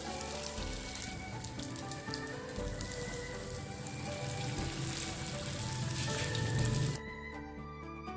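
Stuffed bread buns deep-frying in hot oil, a dense sizzle with many fine crackles, over background music. The sizzle cuts off suddenly about seven seconds in, leaving only the music.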